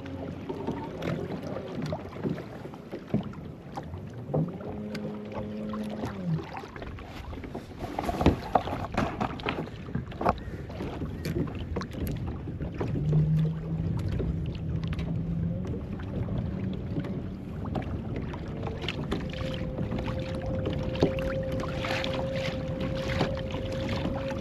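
A kayak's small motor humming on the water. Its tone rises in pitch about four seconds in, drops out, and comes back at different pitches later on. Scattered splashes and knocks, and wind on the microphone, sound throughout.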